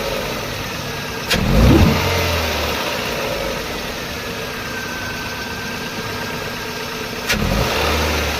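Toyota Corolla XLi four-cylinder engine idling and misfiring, with two short revs, one about a second in and one near the end; a sharp click opens each rev. The engine flutters and misfires when revved, which the mechanic puts down to a burnt number 1 ignition coil.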